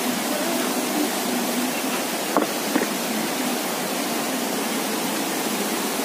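Steady rushing of a rocky mountain stream and its small cascade, an even hiss of water, with two faint clicks about two and a half seconds in.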